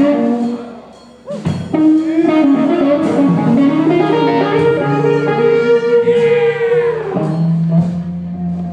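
Live electric guitar playing a slow solo intro with long held notes, some of them bent, and a sharp hit about a second in.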